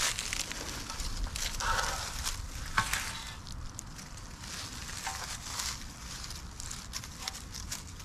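Short-handled shovel cutting into clay soil and levering out a clod, then gloved hands breaking up the clay: irregular crunching and scraping, loudest in the first few seconds, with a sharp knock about three seconds in.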